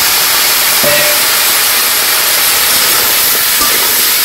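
Food frying in hot oil in a cooking pan: a loud, steady sizzle.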